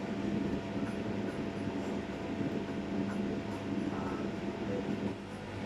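Seafood fideuá simmering and bubbling in a wide pan, under a steady droning hum.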